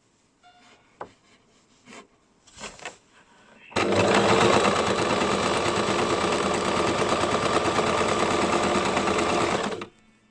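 Basic electric sewing machine starting up suddenly and running steadily at a fast stitch for about six seconds, then stopping; a few faint clicks come before it starts.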